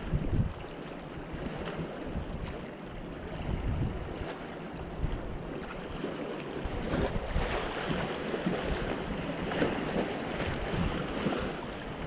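Small waves lapping and splashing against the boulders of a rock breakwater, with wind buffeting the microphone in gusts; the splashing gets a little busier about halfway through.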